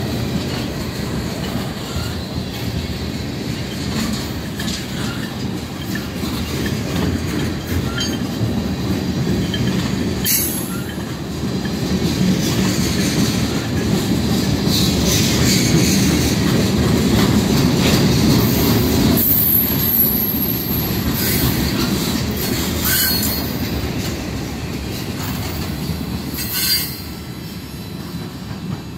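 Cars of a mixed freight train (lumber flatcars, tank cars and boxcars) rolling past: a steady rumble of steel wheels on the rails, with several brief high-pitched wheel squeals. It grows quieter near the end as the last cars move away.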